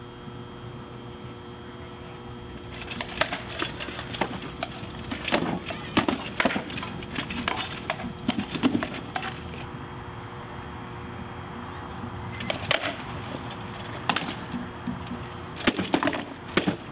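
Sword-and-shield sparring in armour: a rapid, irregular clatter of weapons striking shields and armour, starting about three seconds in, pausing briefly past the middle, then resuming.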